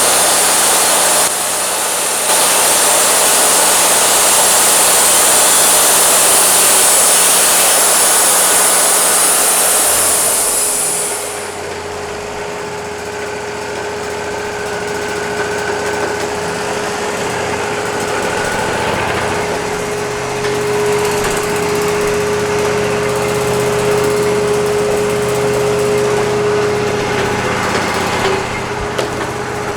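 Woodmizer LT40 sawmill running while sawing a driftwood log: a loud, steady hiss of the band blade in the cut for about the first eleven seconds, then it drops to a quieter steady machine run with a held whine.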